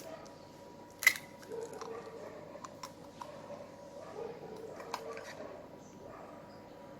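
Eggs being cracked and added to the mix: one sharp knock about a second in, then a few faint clicks and handling sounds.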